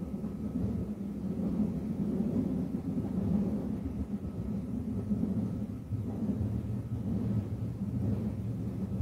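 BART train running, heard from inside the passenger car as a steady low rumble that deepens a little about six seconds in.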